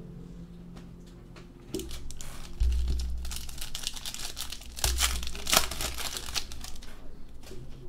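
Foil wrapper of a 2015 Panini Crown Royale football card pack being torn open and crinkled by hand, starting about two seconds in and easing off near the end, with two dull thumps along the way.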